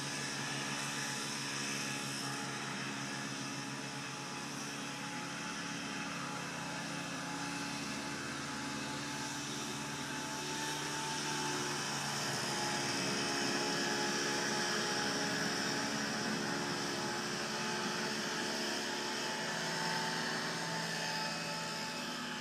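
A steady engine drone, a hum of several low tones over a hiss, getting a little louder about halfway through.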